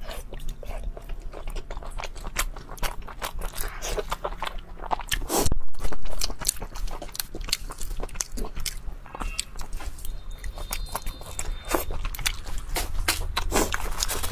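Close-miked eating: a person biting and chewing food, with many short wet clicks and smacks and a louder burst about five and a half seconds in.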